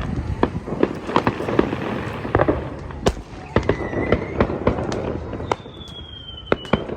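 Many fireworks and firecrackers going off, a dense irregular run of bangs near and far. Whistling rockets join in: a short whistle about three and a half seconds in, and a longer high whistle gliding slightly down from about five and a half seconds.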